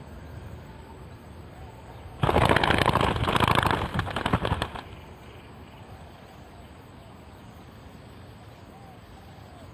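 A burst of rapid wing flapping from a dove, starting about two seconds in and lasting about two and a half seconds before it stops.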